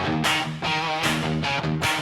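Instrumental hard rock: distorted electric guitar playing sustained chords and a wavering lead line over a steady rhythm, with no singing.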